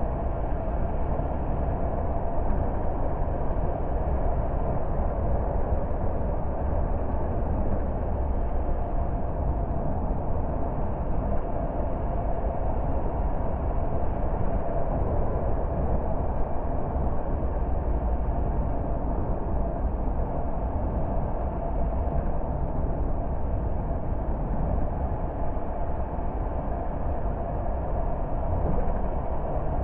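A car driving at a steady pace: constant road and engine noise, deep and even, with no change in speed.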